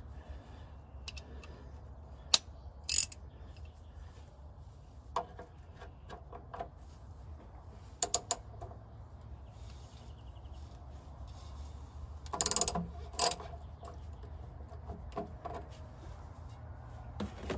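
Ratchet wrench with a 5/8-inch socket clicking in scattered single clicks and short runs as it loosens the oil pan's drain plug. A steady low hum runs underneath.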